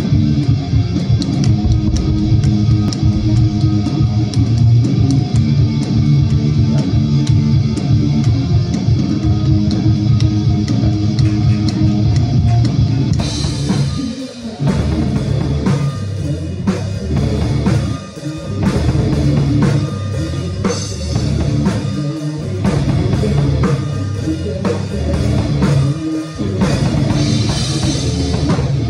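A rock song played on a drum kit with guitar and bass, the drums hitting steadily under the guitar. About thirteen seconds in the sound changes abruptly to another recording of the song, with brighter cymbals and short breaks in the playing.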